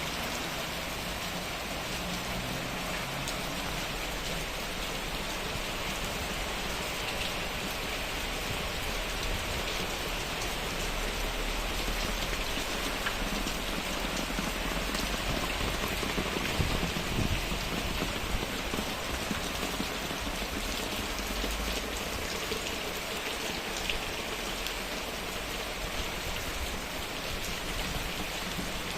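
Heavy rain falling steadily, a dense even patter of drops on surfaces, swelling slightly in loudness midway.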